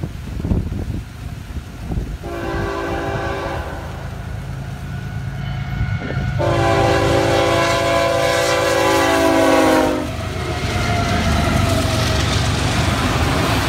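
Florida East Coast freight locomotive's air horn sounding for a grade crossing: a short blast about two seconds in, then a long blast from about six to ten seconds whose pitch drops at the end as the locomotive goes by. Under it the diesel locomotives rumble, and from about ten seconds on the passing train's locomotives and autorack cars give a loud steady rumble and wheel clatter.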